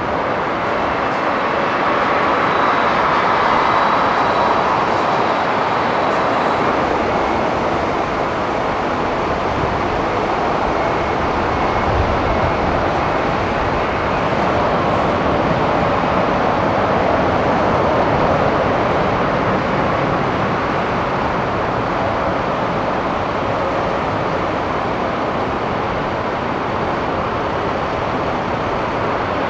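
Steady jet aircraft noise on an airport apron, an even rushing drone that swells and eases gently without any breaks.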